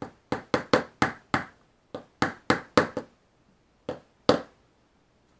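About a dozen sharp metal taps in quick, uneven runs, with a pause before the last two: a small S693ZZ ball bearing being tapped into the top of a quadcopter's brushless motor until it sits flush.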